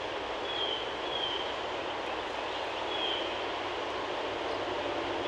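Steady outdoor background noise, with a bird's short, high, down-slurred call note heard three times.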